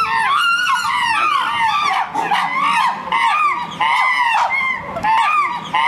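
Chimpanzees screaming: high shrieks that rise and fall in pitch, coming in rapid succession and overlapping one another without a break.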